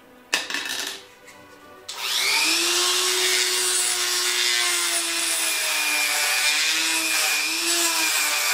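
Corded handheld rotary tool spinning up about two seconds in and grinding the edge of a small plastic project-box frame: a steady high whine over a harsh rasping hiss, wavering in pitch near the end as it is pressed in, then stopping abruptly.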